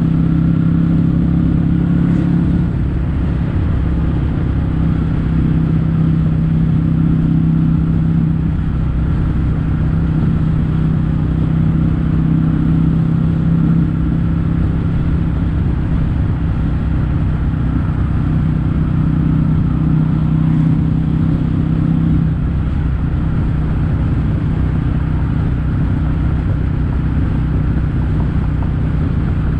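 Kawasaki W800's 773 cc air-cooled parallel-twin engine running at a steady cruise through Yamato stainless-steel Cabton-style silencers, its pitch shifting slightly a few times.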